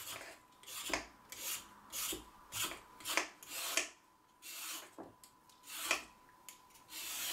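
Vegetable peeler scraping the skin off raw carrots in quick repeated strokes, about two a second, with a short pause midway.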